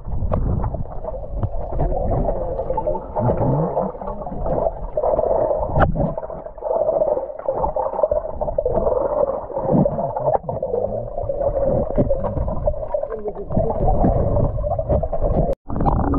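Underwater sound from a camera submerged in a swimming pool: continuous muffled rumbling and sloshing of water with no high tones. The sound cuts out for an instant near the end.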